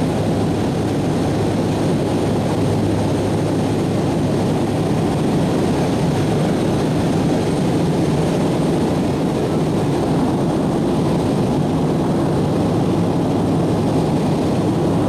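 Steady cabin noise of a passenger airplane in cruise flight: engine and airflow noise heard from inside the cabin, an even rush over a constant low hum that does not change.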